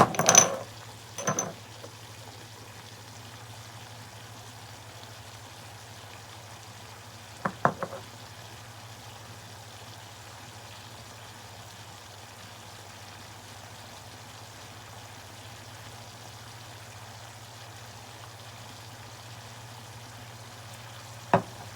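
Kitchen knocks and clicks of seasoning containers being handled over a pan of mince: two sharp knocks at the start, a quick triple click about a third of the way in, and one more knock near the end, over a steady low hum.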